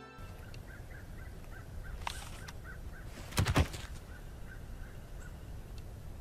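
Outdoor ambience with a steady hiss and a bird calling in short chirps, about three a second. A brief loud thump comes a little past halfway.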